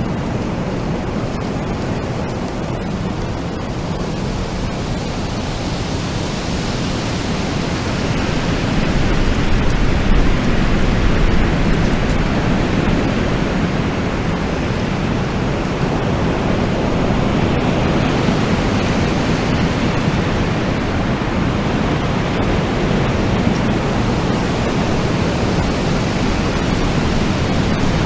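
Wind blowing steadily, a dense low rushing noise that swells in gusts about a third of the way through and again past the middle.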